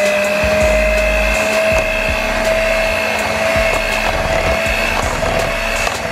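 Electric hand mixer running at a steady speed, its beaters churning wet banana bread batter in a glass bowl, with a constant motor whine.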